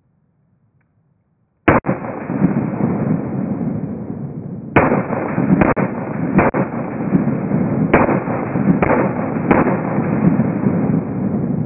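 Handgun shots slowed down to slow motion: seven deep, drawn-out booms, the first about two seconds in, running together into one continuous low, muffled rumble.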